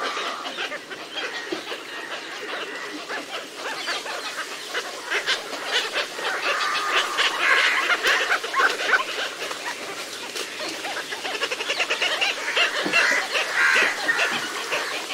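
Many birds calling together in a dense, rapid chatter of short cackling notes, busiest around the middle.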